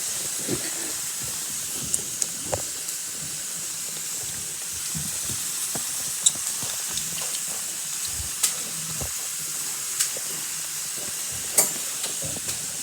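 Beef browning in a hot pan, a steady sizzle with sharp pops or clicks here and there.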